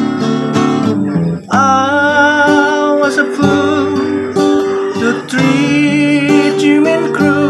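A man sings a slow ballad to his own strummed acoustic guitar, holding long wavering notes twice. The guitar breaks off briefly about a second in.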